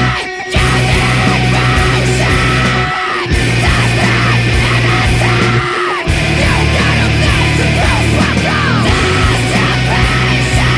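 Post-hardcore band recording: distorted guitars, bass and drums with shouted vocals, the full band dropping out briefly three times.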